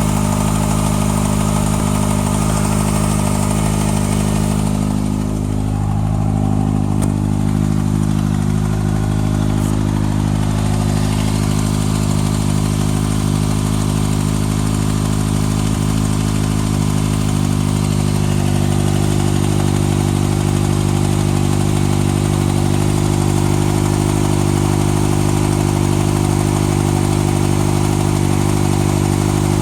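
2014 Kawasaki ZX-6R ABS inline-four engine idling steadily through a Graves slip-on exhaust, with the ticking noise its owner is trying to track down. The higher sounds dim briefly about five seconds in.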